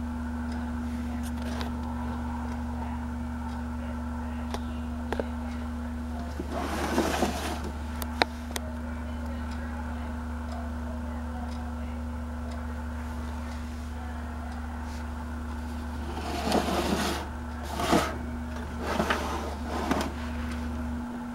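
Electric motor of an animated Santa figure running with a steady hum, with a few louder bursts of rustling noise; the low hum stops near the end.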